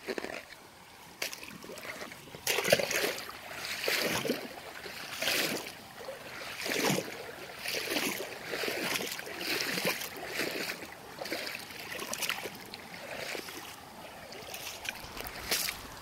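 Footsteps wading through a shallow stream, each step a splash of water, about one a second from a couple of seconds in.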